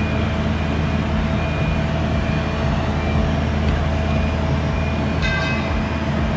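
Boat travel lift's engine running steadily as the gantry moves into position, with a high beep pulsing on and off about once a second. A brief metallic ring about five seconds in.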